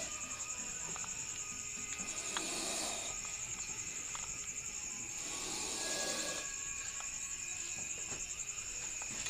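Cricket trilling steadily at a high pitch. Faint rustling comes twice, with a few light clicks.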